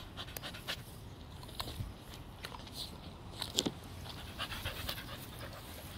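A dog panting hard, with scattered light clicks and rustles.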